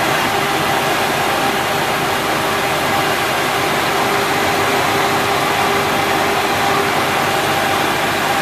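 Horizontal boring mill running steadily, its drive giving a constant mechanical hum with a steady whine over it.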